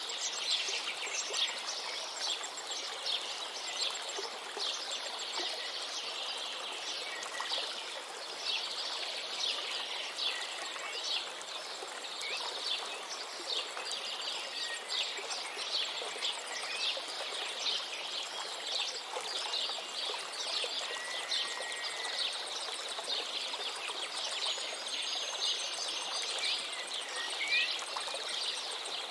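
A river's steady rush of flowing water, with many birds chirping over it. A few separate whistled bird notes stand out near the end.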